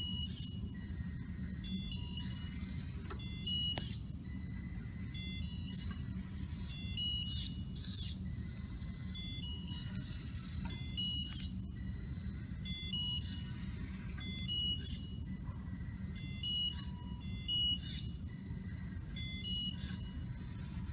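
mBot robot cat running through the maze, its drive motors making a steady low hum. About once a second there is a short burst of high electronic whining or beeping as its servo swings the ultrasonic-sensor head from side to side.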